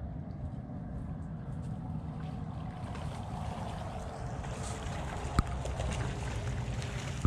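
Shallow seawater sloshing and splashing as a person wades through it carrying a wet cast net, growing louder as he comes closer, over a steady low rumble of wind on the microphone. A single sharp click about five seconds in.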